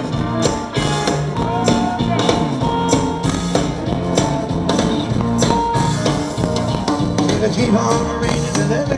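Instrumental blues-rock band intro: a drum kit keeps a steady beat under electric guitar and bass, before the vocals come in.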